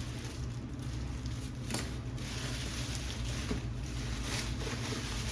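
Packaging rustling and crinkling as a parcel of clothes is unpacked by hand, with one sharper crackle about two seconds in, over a steady low hum.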